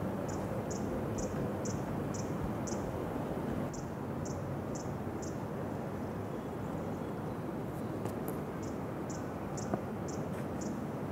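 Cricket chirping, short high chirps about twice a second in runs with pauses between, over a steady background hiss.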